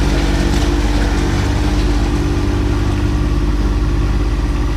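John Deere 1025R compact tractor's three-cylinder diesel running steadily as the tractor drags a rear grading blade across loose gravel.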